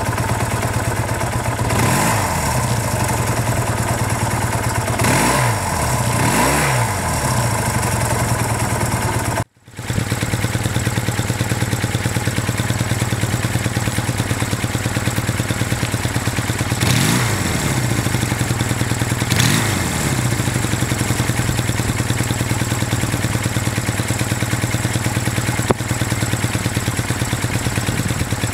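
1974 Honda CB200's air-cooled parallel-twin engine idling steadily, with the throttle blipped five times, the revs rising and falling quickly each time.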